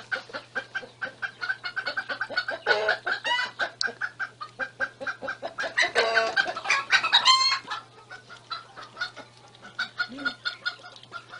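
Chickens clucking in quick, steady succession, with a longer, higher call about six seconds in.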